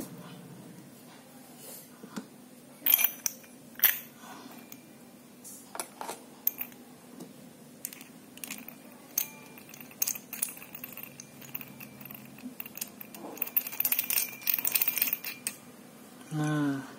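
Small steel parts of a hole saw kit clicking and clinking in the hands as a hole saw is screwed onto its arbor and tightened. Scattered sharp clicks, with a quick run of metallic clicks and clinks near the end.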